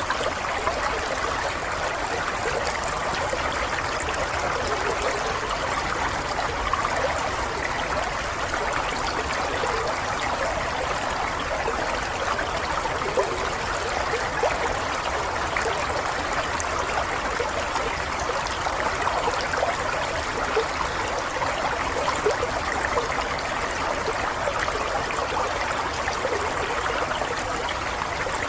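Water running steadily: an even, unbroken rush of small splashes with no pauses or changes.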